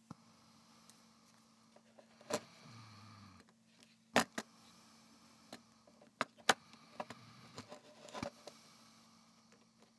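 Plastic case of a LilyGo T-Deck being handled and set down on a wooden table: a series of sharp clicks and knocks, the loudest about four seconds in and about six and a half seconds in, over a faint steady hum.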